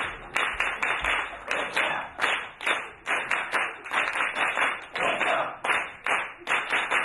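Audience clapping together in a steady rhythm, about two to three claps a second.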